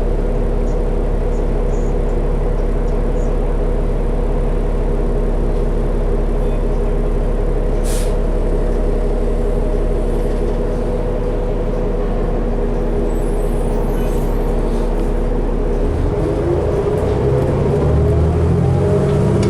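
Interior sound of a 2012 New Flyer D60LFR articulated diesel bus: the engine runs with a steady hum, with one brief high hiss about 8 seconds in. Near the end the engine speeds up with a rising pitch as the bus accelerates.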